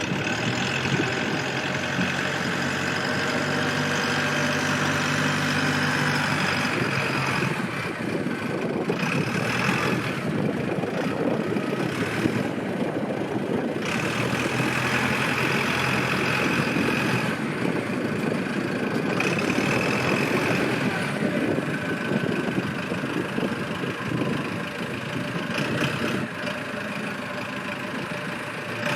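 Engine of a small one-ton backhoe loader running steadily. A higher-pitched whine strengthens and fades in stretches of a few seconds.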